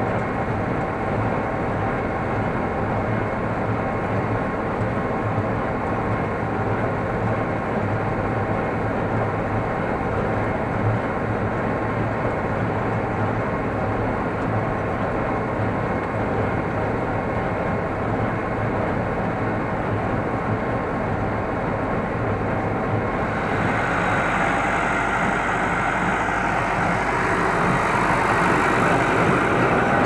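Massey Ferguson 6150 tractor running steadily under load, pulling a working Welger AP53 conventional small-square baler, heard muffled from inside the cab. A little over twenty seconds in, the sound turns brighter and a little louder, as heard from outside beside the baler.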